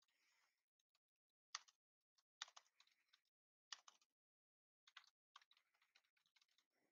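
Faint typing on a computer keyboard: clusters of keystrokes in several short bursts with brief pauses between them.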